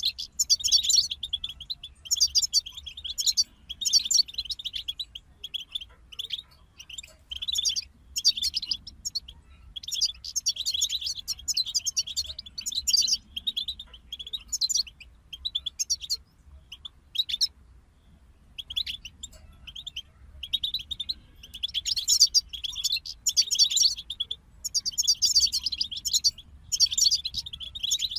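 European goldfinches singing: quick, bright twittering phrases in bursts of a second or two with short pauses, sparser for a few seconds around the middle.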